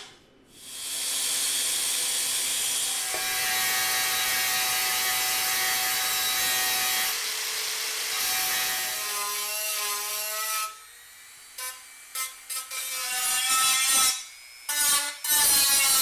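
A handheld power tool cutting slots in 16-gauge sheet steel: a steady cut of about ten seconds, then several short on-off bursts.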